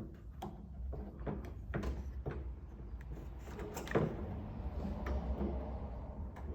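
Scattered light clicks and knocks of a carbon fiber exterior door handle being worked into a Nissan 350Z's door panel, the loudest knock about four seconds in.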